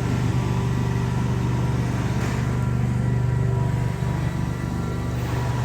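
An engine running steadily at idle: a low, even hum with faint higher tones above it.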